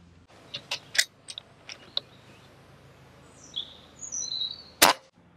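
A moderated Cometa Orion Goldeneye PCP air rifle fires one shot near the end, a single sharp crack. Before it come a few light clicks, and birds chirp in the background.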